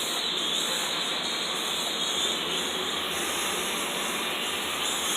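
Small toy quadcopter drone's propellers whirring in a steady, even hiss.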